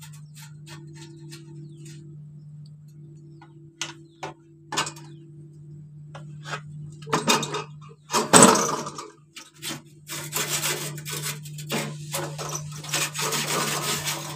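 Screwdriver and sheet-metal parts of a fogging machine's exhaust silencer being worked by hand. A few light clicks come first, then a loud metal clatter about eight seconds in as the cover is opened, then several seconds of metal rubbing and scraping over a steady low hum.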